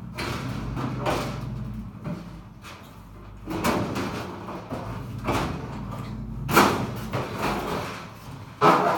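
Frigidaire dryer drum being worked out of its sheet-metal cabinet: irregular scraping and bumping of metal, with sharper knocks about two-thirds of the way through and near the end.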